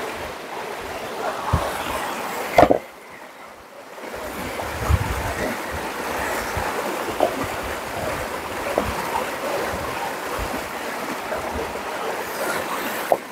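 Running river water, a steady rushing, with scattered small knocks and clatters and one sharp knock about two and a half seconds in.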